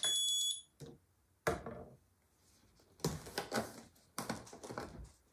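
Digital kitchen scale beeping as it is switched on, followed by a plastic bottle set down on it with a knock about a second and a half in. From about three seconds in come clicking and rustling plastic sounds as the screw cap of a plastic jug is worked loose.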